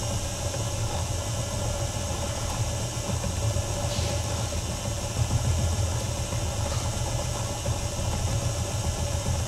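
Plyology electric spinning wheel (e-spinner) running, its motor and spinning flyer giving a steady low hum with a fainter steady higher tone above it, as yarn is spun onto the bobbin.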